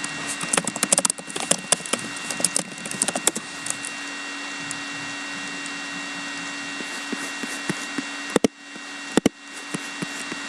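A quick run of light clicks and taps for about three seconds, then a steady low electrical hum with two sharp clicks near the end.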